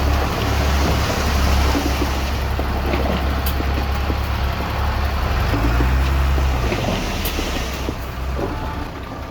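Heavy diesel earthmoving machinery running with a steady low engine drone and mechanical clatter. The engine note shifts briefly about six seconds in.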